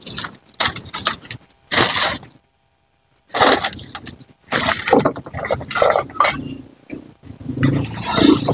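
A plastic spoon scraping peanut sauce off a plate in irregular strokes, with small knocks of utensils and dishes. The sound cuts out completely for under a second about two and a half seconds in.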